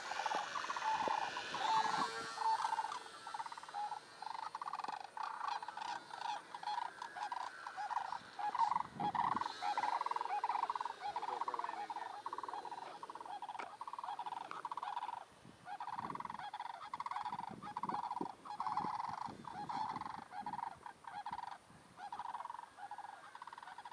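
Electric motor and propeller of a HobbyZone Champ micro RC plane whining in flight, its level rising and falling in quick regular pulses, with the pitch sliding as the plane passes close in the first few seconds. The sound cuts off suddenly at the end.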